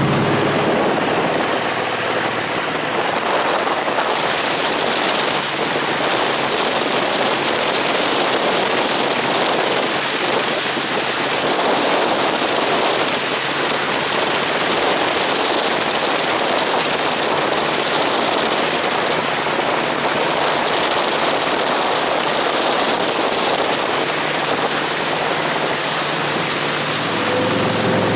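Steady rushing hiss of water and wake. The deep note of the Century Ski Fury's 454 big-block V8 drops out at the start and comes back about a second before the end.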